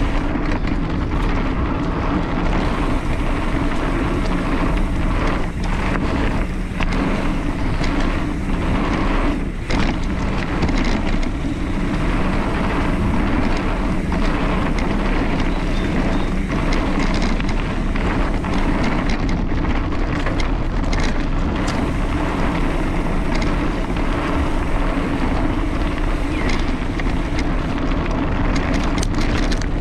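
Mountain bike descending a dirt trail at speed: wind buffeting the microphone over steady tyre and trail noise, with frequent small knocks and rattles from the bike.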